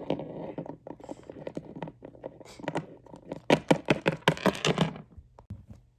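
A rapid, irregular flurry of knocks, taps and clatters, busiest and loudest about three and a half to five seconds in.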